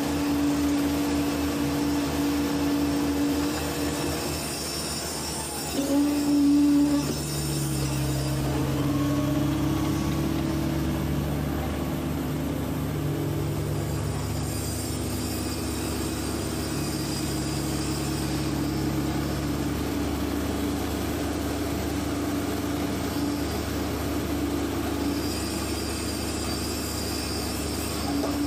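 PC120 hydraulic excavator's diesel engine and hydraulics running, heard from inside the cab, with a steady whine. About seven seconds in the note changes and the engine works harder as the boom lifts and swings the bucket loaded with concrete.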